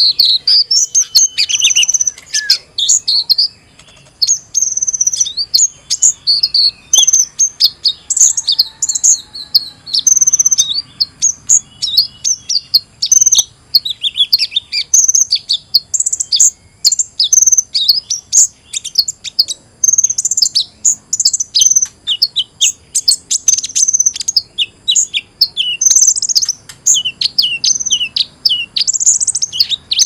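Combined bird-lure (suara pikat) recording of many small songbirds calling at once: rapid, overlapping high chirps, twitters and short trills, dense and busy, thinning briefly about three seconds in. A 'noisy birds' chorus meant to draw wild birds in.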